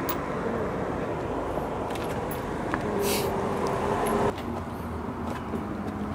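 Steady low rumble of a motor vehicle running, with a short hiss about three seconds in.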